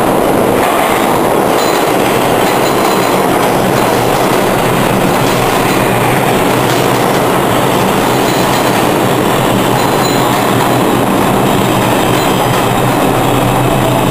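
R142 subway train pulling into the station: a loud, steady noise of steel wheels running on the rails, with a low, even hum underneath.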